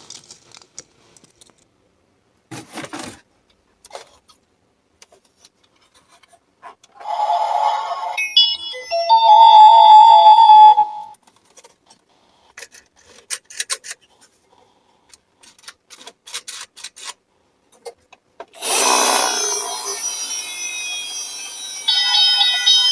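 Scattered light clicks and rattles of toy ambulance minicars rolling down a slope, broken by bursts of a toy electronic ambulance siren: a loud burst on two pitches about a third of the way in, and another, noisier siren sound starting near the end.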